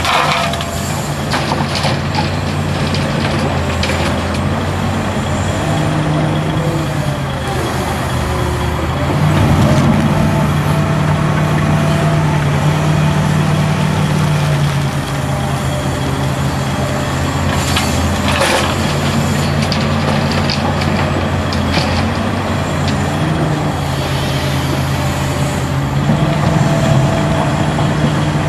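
Hitachi Zaxis 350LCN excavator's six-cylinder diesel running under hydraulic load as it digs and swings, the engine working harder from about a third of the way in. A brief rushing burst about two-thirds through, as a bucketful of soil drops into the dump truck's steel body.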